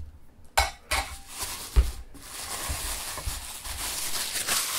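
Crinkling and rustling of the thin wrapping being pulled off a stack of enamel bowls, with a few soft knocks as they are handled, the loudest a little under two seconds in.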